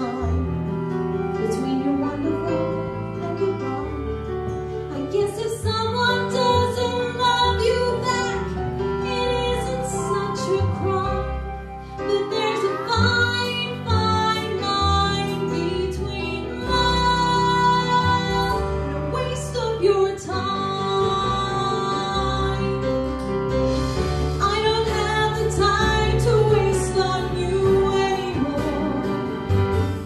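A woman singing solo into a microphone with instrumental accompaniment.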